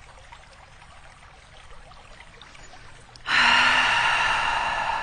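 A person's long, breathy exhale, starting suddenly about three seconds in with a brief voiced onset and slowly trailing off.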